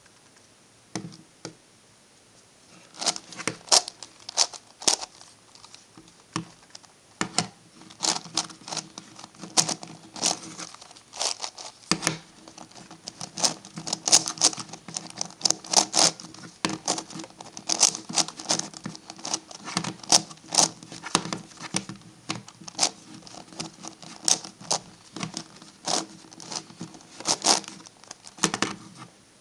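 MF8 Gigaminx plastic puzzle layers being turned by hand: a quick, irregular run of plastic clicks and clacks, sparse at first and busy from about three seconds in.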